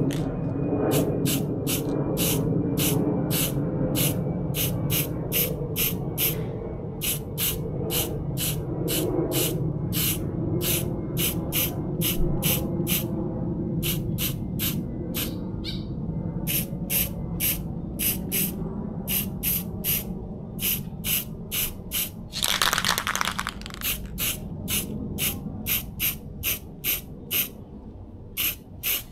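Aerosol spray-paint can being shaken, its mixing ball rattling in an even rhythm of about three clacks a second. About three-quarters of the way through comes one short spray hiss lasting about a second.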